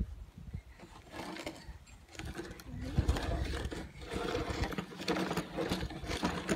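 Hard plastic wheels of a toddler's ride-on toy car scraping and grinding through sand as it is pushed along, starting about a second in, with a small child's voice mixed in.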